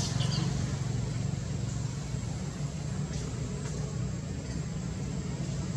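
Steady low hum of a motor vehicle engine, with a few faint ticks.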